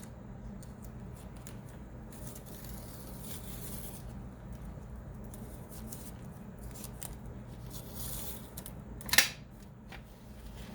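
Tape being peeled off the edges of 140 lb watercolor paper, with faint intermittent crackling and rasping as it lifts, and one sharp loud snap about nine seconds in.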